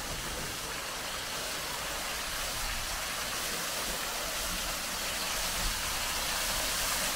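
Water spilling and splashing over an old mill waterwheel, a steady rushing hiss that grows slightly louder.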